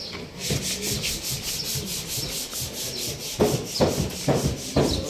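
Sanding on a car body panel during denting and painting work: a steady rasping rub with a fast, even pulse, and a few louder scraping strokes in the last couple of seconds.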